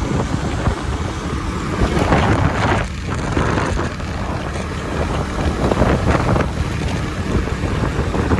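Wind buffeting the microphone on a moving motorcycle, in gusty surges over a steady low rumble of engine and road noise.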